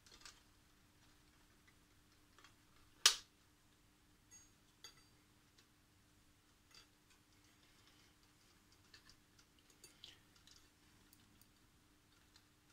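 Faint clicks and taps of hands handling metal brackets and parts inside the chassis of an opened ICOM IC-756 Pro III transceiver, with one sharp click about three seconds in.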